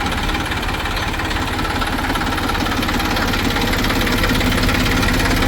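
Large diesel engine running steadily, with a fast, even knock.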